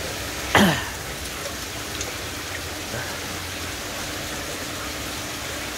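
Water sloshing and splashing as a hand stirs a crowd of koi in a plastic basin. About half a second in there is one short, loud sound that falls quickly in pitch.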